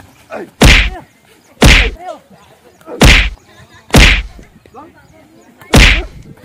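Five loud whacks of blows from a wooden stick, roughly a second apart, with short cries between them.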